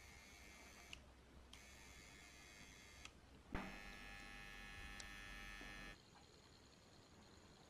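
Faint electrical hum with a high buzz that cuts out twice for about half a second. It comes back louder with a small click about three and a half seconds in, then stops near the six-second mark, leaving a fainter steady high tone.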